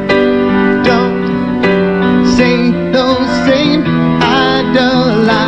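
A song: steady piano chords under a sung melody that wavers in pitch on its held notes.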